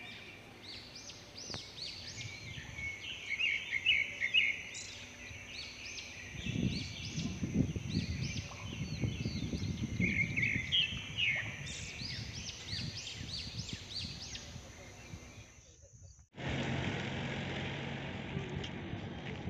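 Many small birds chirping and singing in quick rising notes over a steady high-pitched whine, with a low rumble in the middle stretch. About sixteen seconds in the sound cuts off and is replaced by a steady hiss with a low hum.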